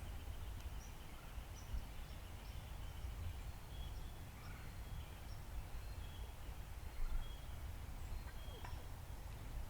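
Outdoor ambience: a steady low rumble on the microphone with faint, scattered songbird chirps.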